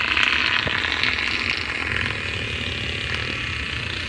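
A long, buzzing fart noise that fades slowly over about four seconds, with a low rumble underneath.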